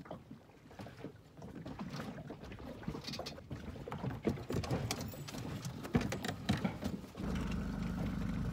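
Scattered knocks and scuffs on an inflatable dinghy as a dog climbs down into it, then about seven seconds in the dinghy's small outboard motor starts and runs steadily.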